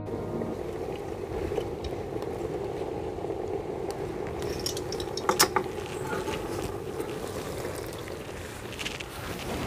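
A lidded iron karahi of potato and aubergine curry simmering on the stove with a steady sizzle, with a few sharp metal clinks about halfway. Near the end the metal lid and ladle clank as the curry is uncovered and stirred.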